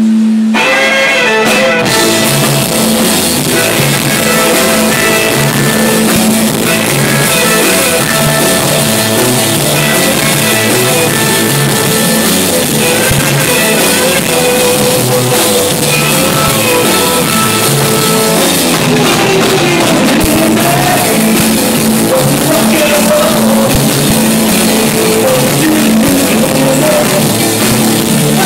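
Live rock band starting a song about half a second in, then playing steadily: electric guitars and drum kit, with singing.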